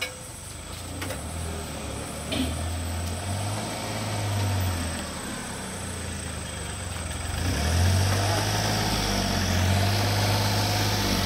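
Steady low drone of a running engine, growing louder about seven and a half seconds in, when a steady hiss joins it.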